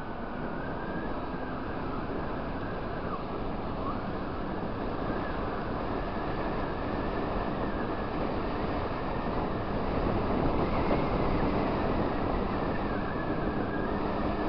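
Motor scooter riding along a street: the engine's running hum is largely buried under a steady rush of wind on the microphone, growing a little louder about ten seconds in.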